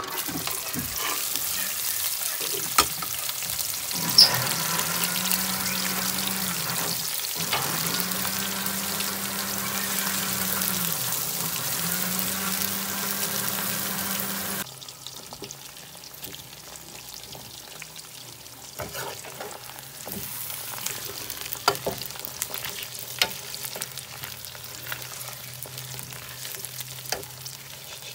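Sliced onions sizzling loudly as they go into hot oil in a steel pot, with the steel ladle clicking against the pot now and then as they are stirred. A low hum comes and goes under the loud part. About halfway the sizzle drops abruptly to a quieter, steady fry as the onions brown.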